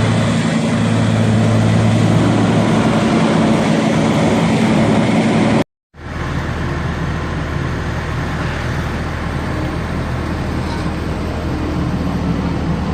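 Heavy machinery running steadily with a loud low hum. About halfway through it cuts out completely for a split second, then resumes with a deeper steady hum.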